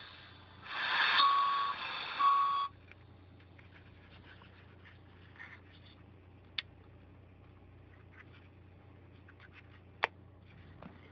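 Small pocket transistor radio hissing static with two short whistling tones as it is tuned off-station, cutting off abruptly under three seconds in. Then a low hum and two sharp clicks as the radio is handled.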